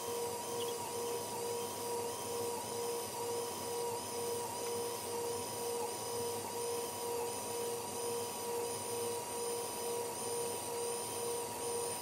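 Mini makeup-sponge washing machine running, its small motor whirring; the audio is sped up, so it comes out as a steady high whine that pulses evenly about two to three times a second.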